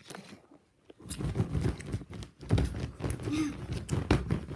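Thumps and rubbing from a phone being handled close to its microphone, starting about a second in, with bits of children's voices mixed in.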